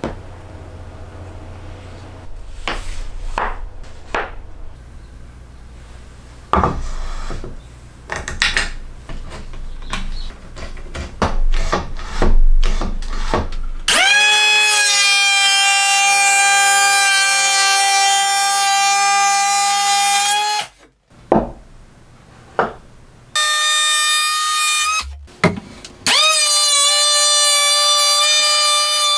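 Wooden jig pieces being handled and set down on the bench: scattered knocks and rubs. About halfway through, a Makita KP180DZ cordless electric hand planer spins up to a steady high whine while planing wood, stops after about six seconds, then starts again twice and runs to the end.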